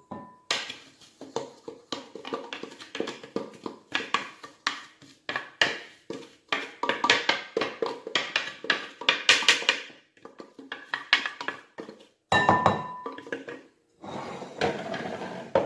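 Wooden spatula scraping and knocking against a plastic food-processor bowl as ground nuts are scraped out: a busy run of scrapes and taps, with a louder cluster of knocks about twelve seconds in.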